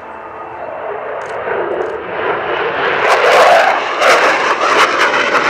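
The jet engines of a Sukhoi Su-27P fighter running as it passes the crowd. The sound grows steadily louder, peaks about three seconds in with a ragged crackle, and stays loud to the end.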